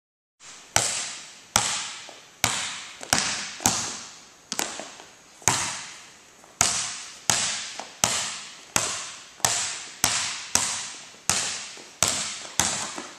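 A basketball bouncing again and again on a gym floor as it is dribbled, a sharp bounce roughly every two-thirds of a second, each one echoing in the big hall.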